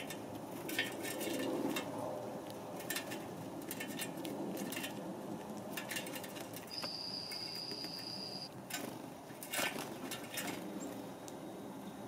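House sparrows pecking seed from a metal hopper feeder: irregular small clicks and scratches of beaks and feet on the metal tray, over a steady low background hum. About seven seconds in, a single high, steady whistled note lasts about two seconds.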